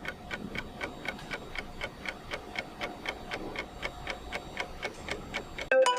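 Even clock-like ticking, about four ticks a second. Near the end a bright ringtone-like melody starts abruptly.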